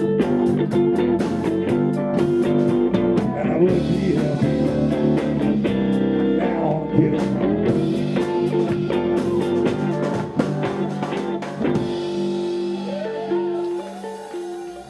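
Live blues band playing, with electric guitars, bass and drums. About twelve seconds in, the drums and bass drop out, leaving a guitar playing repeated notes that fade toward the end.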